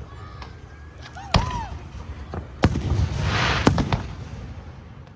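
Aerial fireworks shells bursting: four sharp booms, the last two close together, with a hiss rising just before the third boom.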